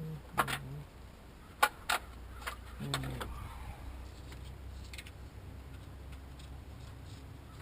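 Several sharp metallic clicks and clinks of hand tools and engine parts being handled, mostly in the first three seconds, with a few brief low grunts or hums in between.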